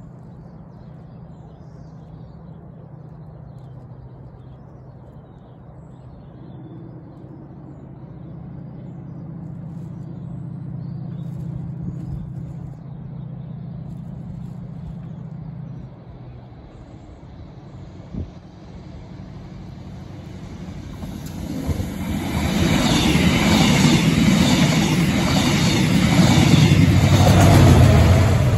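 Diesel train approaching and passing at speed: a low engine rumble builds slowly, then about two-thirds of the way in it turns into a loud rush of wheels clattering over the rails. The sound is loudest at the very end as the train goes by close at hand.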